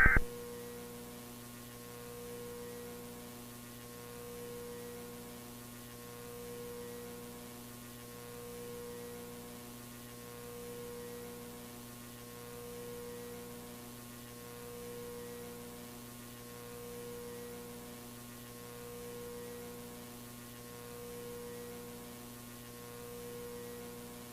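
Steady electrical mains hum, a low buzz with a higher tone that swells and fades about every two seconds.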